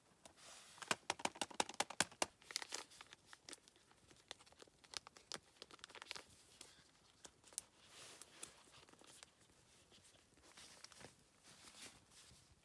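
A foil freeze-dried meal pouch being torn open and crinkled by hand. A quick, dense run of crisp tearing and crinkling about a second in, then scattered crinkles as the pouch is handled.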